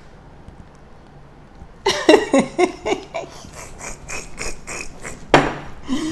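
Loud, hearty laughter that breaks out about two seconds in, a rapid string of ha-ha pulses, with a sharp breathy gasp shortly before the end.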